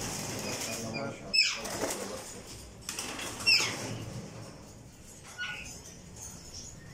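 Indian ringneck parakeets screeching: two sharp, steeply falling shrieks, about a second and a half and three and a half seconds in, with fainter bird calls between.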